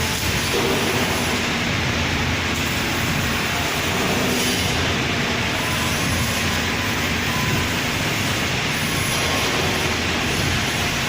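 Panel welding machine running, a steady mechanical noise with faint steady tones and no clear rhythm.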